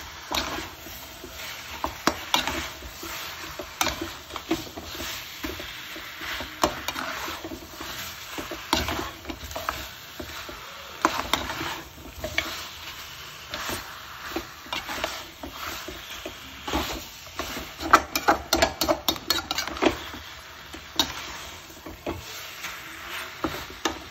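Wooden spatula stirring and scraping thick mutton masala around an aluminium pot, in irregular strokes with a quick run of them about three quarters of the way through. Underneath is a low sizzle of the masala frying in oil, at the stage where it has begun to release its oil.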